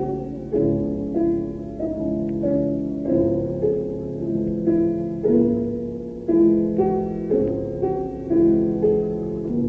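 Piano playing a slow instrumental passage of a song with no voice, single notes and chords struck about twice a second and left to ring.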